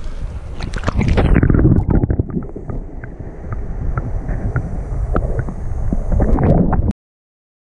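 Water splashing as a small salmon is released by hand at the surface, then the muffled, low rumble of water heard underwater, with scattered small clicks and knocks. The sound cuts off abruptly about seven seconds in.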